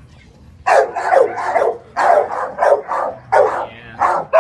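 Dogs barking in a rapid, loud series that starts about two-thirds of a second in, roughly two barks a second.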